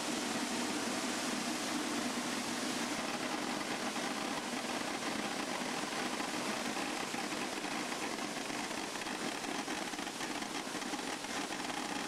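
Steady machinery noise of an electronic sorting machine running green coffee beans through its channels to separate them by quality.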